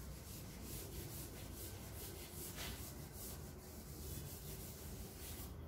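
Chalkboard eraser rubbing over a chalkboard in repeated back-and-forth strokes, wiping the chalk writing off; a faint, scratchy brushing.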